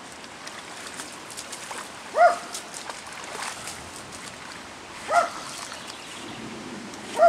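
A dog barks three times, one short bark roughly every three seconds, over the steady rush of floodwater running through a creek crossing.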